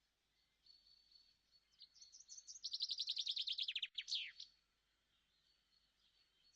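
Small songbird singing: a rapid trill of high, quickly falling notes, about ten a second, starting about two seconds in, then one longer falling sweep. A faint thin high steady note sounds before and after the trill.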